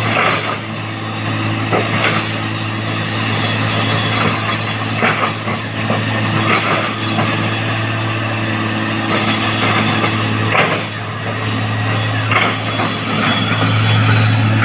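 Heavy diesel machinery engine running steadily, with repeated sharp metallic clanks and knocks through it.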